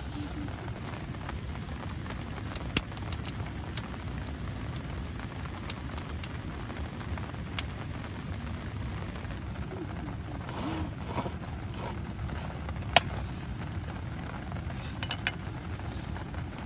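Steady rain falling, with the scattered sharp pops and crackles of a wood campfire; one pop about thirteen seconds in is louder than the rest.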